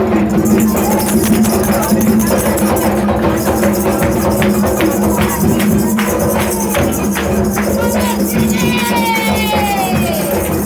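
Music with shaker-like percussion over a steady low drone; near the end a tone glides downward.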